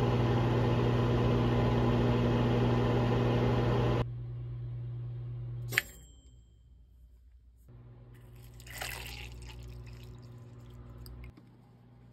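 An electric appliance running with a steady hum and a rushing, airy noise that cuts off about four seconds in. The hum carries on a little longer and ends with a sharp click.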